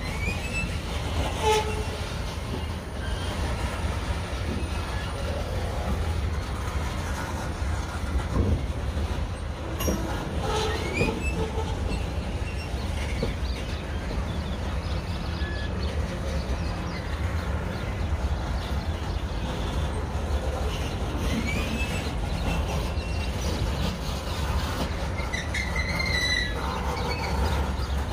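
Freight train's covered hopper cars rolling past with a steady low rumble of wheels on rail. Scattered clicks come over the rail joints, and short high wheel squeals sound several times.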